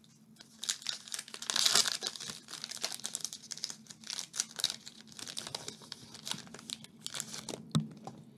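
Shiny foil wrapper of a Topps Chrome baseball card pack being crinkled and torn open, loudest about a second or two in. Softer rustling and clicks follow as the cards are pulled out.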